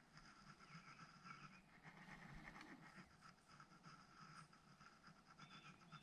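Near silence with a faint, steadily pulsing dusk chorus of small calling creatures at the lakeshore, and a short high call near the end.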